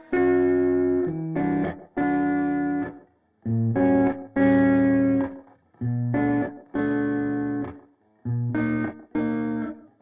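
Instrumental lofi music: guitar chords played in blocks about a second long, each cut off sharply, with brief silences between some of them.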